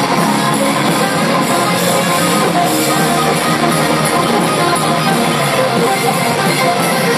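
Rock band playing live with electric guitars to the fore and no singing, loud and steady as heard from the crowd.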